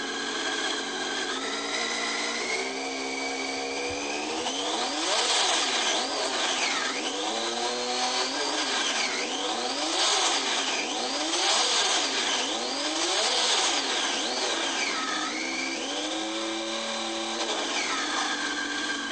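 Motorcycle engine, just started, revved again and again: its pitch climbs in steps, then rises and falls about eight times in quick blips, and settles back to a steady idle near the end.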